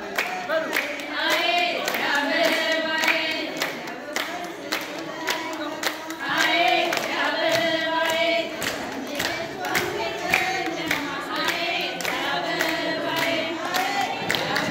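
A group of people singing together, clapping their hands in rhythm.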